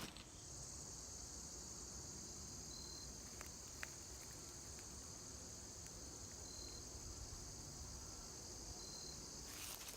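Faint, steady, high-pitched chorus of insects, typical of crickets, with a few brief faint chirps over it.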